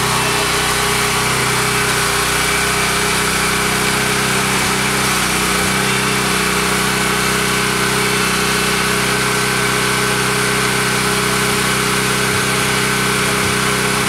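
Small engine of a motorized concrete power buggy running steadily at a constant speed, an even hum that does not rise or fall.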